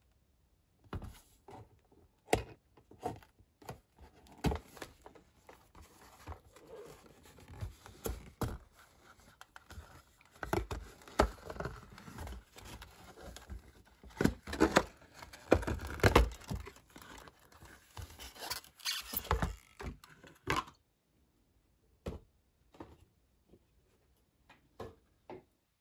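Hands opening a cardboard liquor box: paperboard flaps scraping, rustling and tearing, with many sharp clicks and knocks, loudest a little past the middle. Near the end only a few light taps as the glass bottle is handled.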